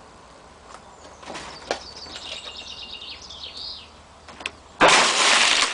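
Demolition noise: faint high chirping or squealing, then a sudden loud crash of noise about five seconds in, lasting under a second.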